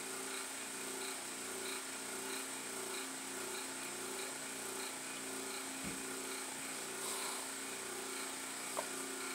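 A small motor humming steadily, with a regular throb about one and a half times a second.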